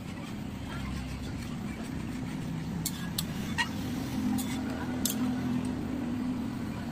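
Metal spatula stirring pea curry in a metal kadai, clinking against the pan three times about three seconds in and once more about five seconds in, over a steady low rumble.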